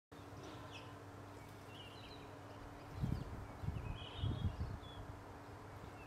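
A Cape robin-chat bathing in a shallow bird bath: from about three seconds in, a run of low, uneven splashing flutters as it beats its wings in the water. Short, scattered bird chirps come and go throughout.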